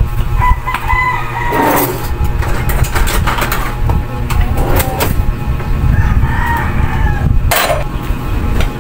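A rooster crowing twice, once about half a second in and again around six seconds, over soft background music, with a few sharp clicks.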